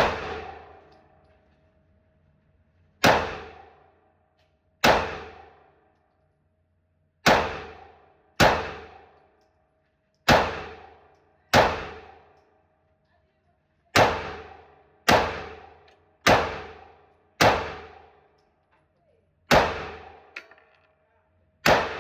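Slow, aimed single shots from a Smith & Wesson M&P Shield 9mm pistol, about a dozen in all, spaced one to two and a half seconds apart, each loud crack echoing away in the range.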